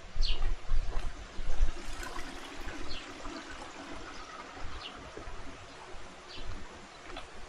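Spring-fed stream flowing steadily, with short high bird chirps every second or so. Low thumps in the first two seconds are the loudest part.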